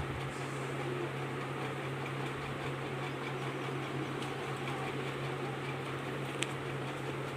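Steady low mechanical hum with an even hiss, with one short sharp click about six and a half seconds in.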